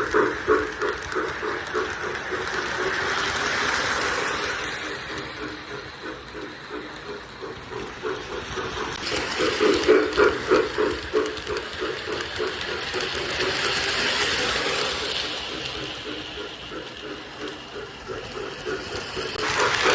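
O gauge model steam freight train running on its track: rapid rhythmic clicking with a hissing rush. It grows loud three times, about ten seconds apart, as it passes close.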